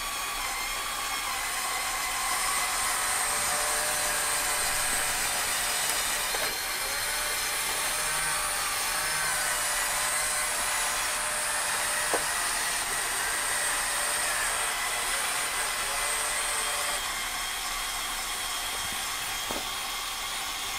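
Electric motors of a LEGO Technic 42100 Liebherr R9800 excavator model whirring together with gear noise as one-touch control drives several of them at once, moving the boom and bucket. The whir changes pitch a few times, with a light click about twelve seconds in.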